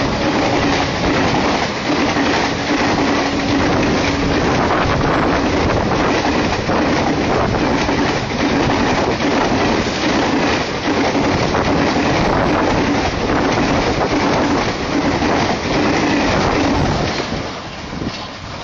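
Guwahati–Okha Dwarka Express passenger train running through a station without stopping, its coaches going past at speed with a loud, continuous rush of wheel-and-rail noise. The noise falls away near the end as the last coaches pass.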